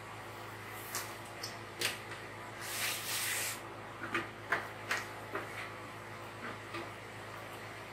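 Steel ladle clinking and knocking against a large metal pot and plastic food containers while vegetable soup is dished out: a scatter of light clacks, with a short rustle of plastic a few seconds in.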